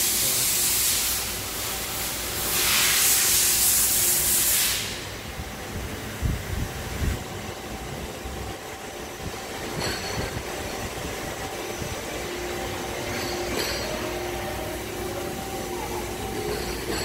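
Machine-shop noise in a CNC turning shop: two loud stretches of hissing, each a couple of seconds long, in the first five seconds. After that, the steady hum of running lathes with a few faint clicks.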